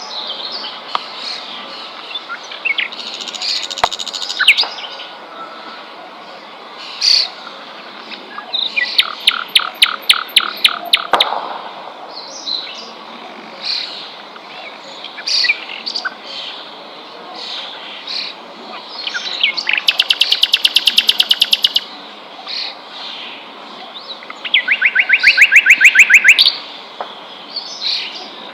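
Several songbirds chirping, their short calls overlapping, with three loud rapid trills of quickly repeated notes: about nine seconds in, about twenty seconds in, and a lower one about twenty-five seconds in.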